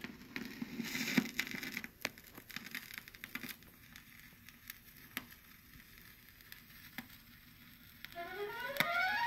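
Vinyl LP surface noise from the stylus of a Bang & Olufsen Beogram 3404 turntable running in the lead-in groove: soft hiss with scattered clicks and pops, louder with a sharp knock in the first two seconds. Near the end the music begins with a quick rising run of notes.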